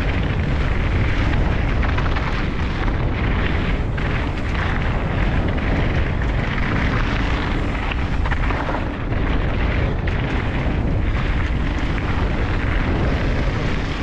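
Heavy wind rumble on a helmet-mounted camera's microphone as a mountain bike rides down a gravel trail, with the tyres crunching over loose gravel and the bike rattling throughout.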